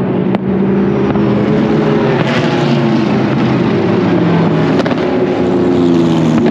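Race car engines running past at the steady, low-rev pace of a full course caution, several engine notes overlapping and drifting slowly in pitch. Two sharp cracks from fireworks, one just after the start and one about five seconds in.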